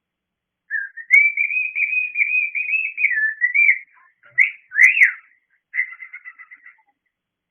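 Cockatiel whistling for attention: a warbling whistled phrase lasting about three seconds, then two sharp up-and-down chirps, then a short rattly trill.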